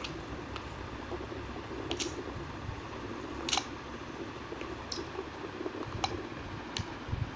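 Six or so sharp single clicks, a second or two apart, over a steady low hum and hiss.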